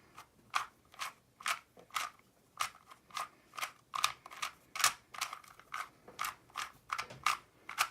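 Plastic 2x2 Rubik's Cube being turned by hand during a solve: its layers snap round in sharp clacks, about two or three a second at an uneven pace.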